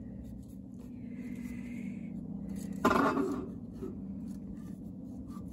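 Fingers rubbing and smoothing masking tape onto a bent metal pipe, a soft scraping, with one sudden knock about three seconds in as the pipe is handled. A steady low hum runs underneath.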